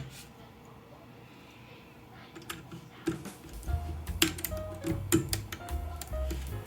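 A few sharp plastic clicks as keycaps are pulled off a mechanical keyboard, then background music with a low bass line comes in about halfway through and carries on to the end.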